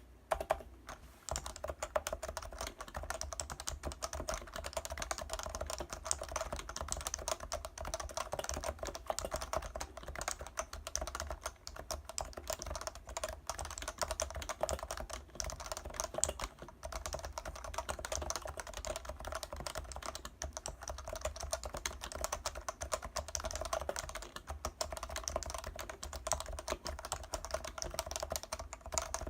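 Fast, continuous typing on a Leopold FC660C keyboard with Topre electrostatic capacitive switches: a dense stream of keystrokes.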